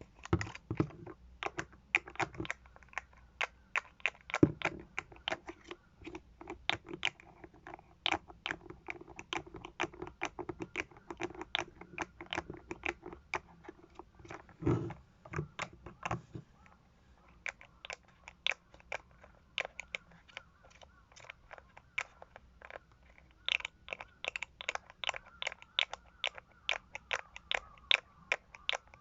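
Cosmetic container lids being worked: a dense run of irregular clicks, snaps and taps, with heavier knocks about four and a half and fifteen seconds in. From about halfway the clicks turn lighter and higher.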